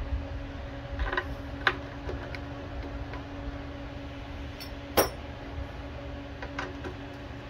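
Scattered light clicks and taps of hands handling the plastic covers and parts of a lawn mower engine, the loudest about five seconds in, over a steady low hum.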